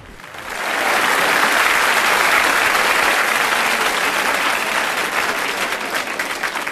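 Audience applauding, swelling up about half a second in and holding steady, with separate claps coming through more clearly near the end.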